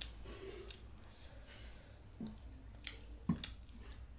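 Eating by hand: fingers mixing wet food in a ceramic bowl, with soft squishing and a few sharp clicks, the loudest a knock a little past three seconds in.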